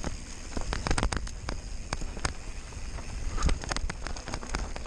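Giant Stance 1 mountain bike rattling over a rocky dirt singletrack on a descent, with a quick, irregular run of clicks and knocks from the tyres and frame striking stones and ruts. A low wind rumble on the microphone runs underneath.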